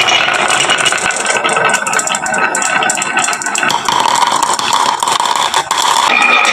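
Many glass marbles clattering and rattling down a wooden marble-run slope, a dense stream of rapid clicks and knocks.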